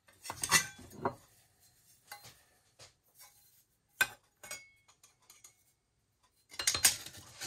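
Thin stainless steel sheet-metal plate and a steel rule clinking and rattling as they are handled at a bench vise: a cluster of clinks near the start, one sharp click about four seconds in, and another cluster of clinks near the end.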